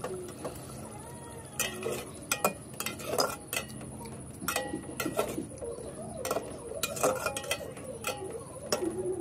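Ladle stirring eggs in curry in a metal cooking pot, knocking and scraping against the pot's sides many times in irregular clusters, some strikes ringing briefly.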